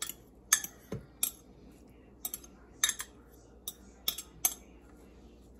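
A metal spoon clinking and scraping against a glass measuring cup while shredded chicken is scraped out of it: about ten sharp, irregular clinks.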